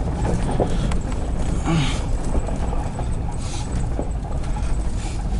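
CSX freight train passing: a steady low rumble with scattered clicks of the wheels running over the rails.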